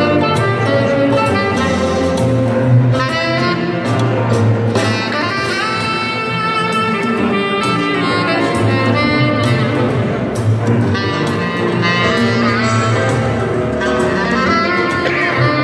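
Instrumental jazz-style music with a melody over a steady bass line.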